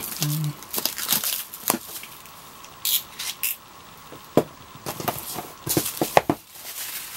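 Thin plastic shrink wrap being cut with a utility knife and torn off a cardboard box, crinkling and crackling in irregular bursts. There are a few sharp taps partway through as the box is handled.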